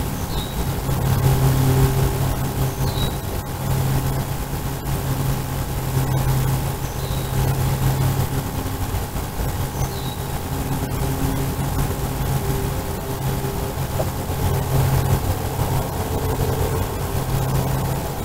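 A steady engine drone: a low hum that swells and fades over several seconds. A few short, high chirps sound over it now and then.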